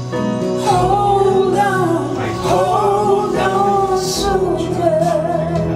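A song played back over Dali Callisto wireless active hi-fi speakers: steady held backing notes, with a sung vocal line coming in under a second in and carrying a wavering, vibrato-like pitch.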